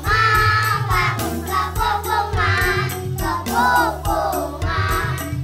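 A group of children singing together over music with a steady beat and a held bass line.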